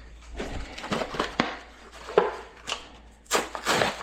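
Hard plastic toilet tank parts clicking and knocking as they are handled, a dozen or so sharp clicks, with a short rustling burst near the end.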